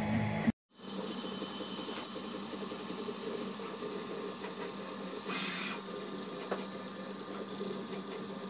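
Monoprice Select V2 (Prusa i3-style) 3D printer running a print: its stepper motors and cooling fans give a steady whir made of several held tones. It comes in after a brief dropout about half a second in. A short hiss sounds about five seconds in.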